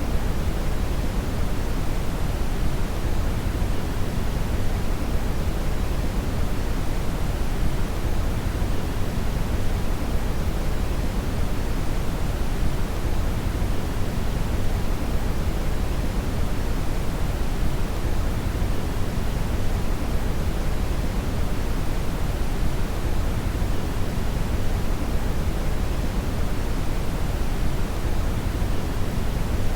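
Steady synthetic brown (red) noise: an even, deep rumbling hiss weighted heavily toward the low end, unchanging throughout.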